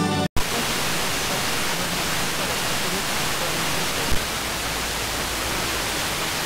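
Wide-FM radio receiver (Airspy HF+ software-defined radio) tuned to a weak or empty FM broadcast channel: steady loud FM hiss, a weak station faint underneath it. The sound cuts out briefly just after the start and clicks once about four seconds in as the tuning steps to the next frequency.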